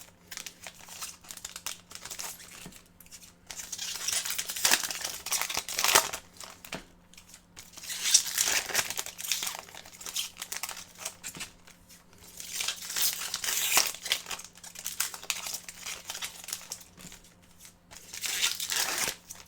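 Trading-card pack wrappers being torn open and crinkled, in several bursts of rustling a few seconds apart, over a faint steady low hum.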